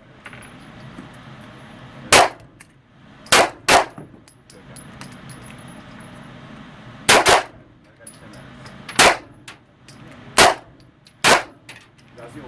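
Handgun shots fired one at a time on an indoor range, about seven in all at uneven intervals, two of them in quick succession early on.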